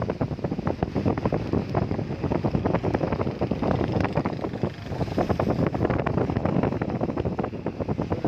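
Heavy rain falling, with many drops striking close by in a dense patter, and wind buffeting the microphone.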